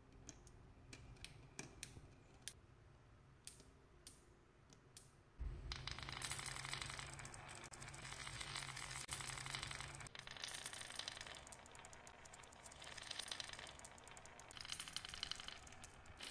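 A few scattered clicks, then, about five seconds in, a crowd of marbles rolling and clattering down a carved wooden serpentine marble-run slope: a dense, continuous rattle that swells and eases.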